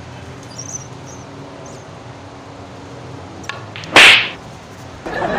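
A single loud, sharp slap about four seconds in, a hand striking a person. Raised voices follow near the end.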